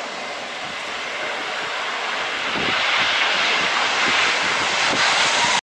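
Airplane engine roar that grows louder over the first few seconds, holds steady, then cuts off suddenly near the end.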